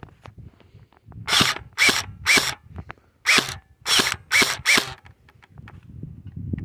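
Electric airsoft rifle fired on semi-auto: seven quick single shots, each a short mechanical clack with a brief whine of the motor and gearbox, in two groups of three and four. The gun is cycling but not shooting, because its high-capacity magazine needs rewinding.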